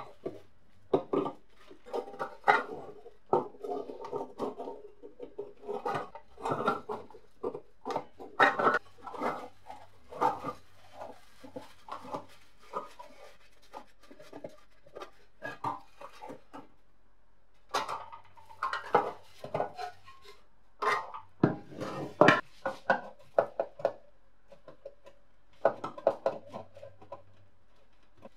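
Rusty sheet-metal parts of an antique heater being handled and pried apart: irregular metal clanks, scrapes and knocks, with a couple of quiet pauses about halfway through.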